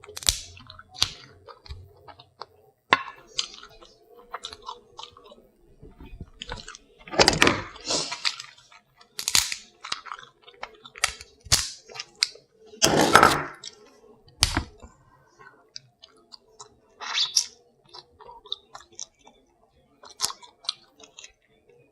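Close-miked eating sounds of seafood being chewed: wet chewing and lip-smacking with many scattered short clicks. There are a few louder noisy bursts lasting about a second, around seven and thirteen seconds in.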